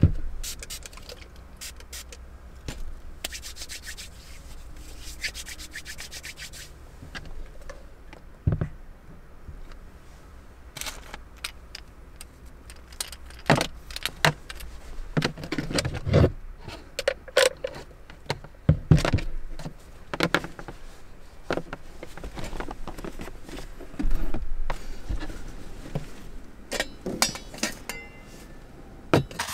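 Objects being handled at close range: irregular clicks, knocks and rubbing, with jangling like keys, over a faint low steady hum.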